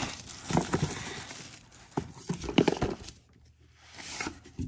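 Plastic shrink wrap crinkling as it comes off a cardboard trading-card box, then several knocks and taps as the box is turned and set down, and a soft swish of the lid sliding up off the box.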